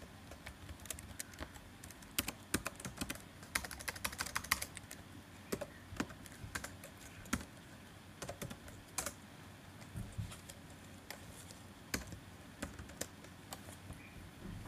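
Typing on a computer keyboard: a quick run of key clicks about two to five seconds in, then scattered single keystrokes and short runs, with pauses between.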